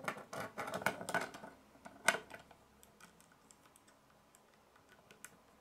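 Small plastic Lego pieces clicking and rattling as they are handled and pressed together: a quick flurry of clicks in the first second and a half, one sharp click at about two seconds, then a few faint ticks.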